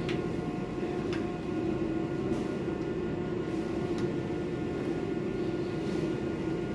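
Air conditioner running with a steady hum, with a few faint ticks about a second apart now and then.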